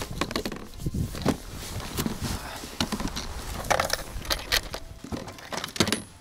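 Plastic ice-fishing box being opened and gear rummaged through inside it: an irregular run of clicks, knocks and rustles.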